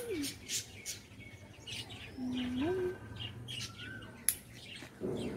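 Small birds chirping repeatedly, with short rising chirps. Two sharp clicks stand out, one at the very start and one about four seconds in.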